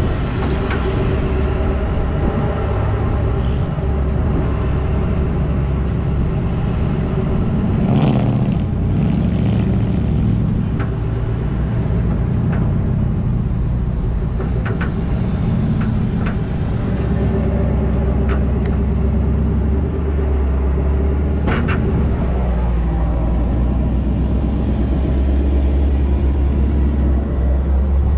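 Pickup truck driving slowly on beach sand, its engine giving a steady low rumble, with a few short clicks along the way.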